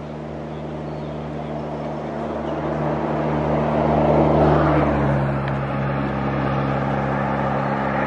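A motor vehicle's engine running with a steady hum that grows louder toward the middle; about five seconds in its note drops slightly.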